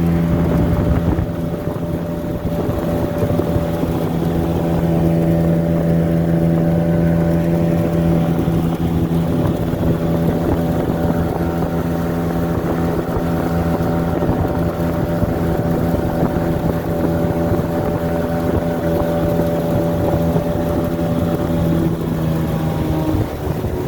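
Boat's outboard motor running steadily at cruising speed, with wind buffeting the microphone; the engine note dips briefly near the end.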